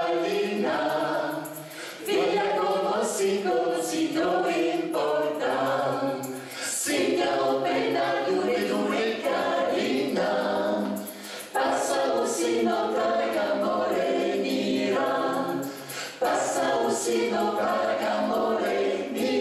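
A mixed group of men's and women's voices singing together in harmony, phrase after phrase, with brief dips between phrases.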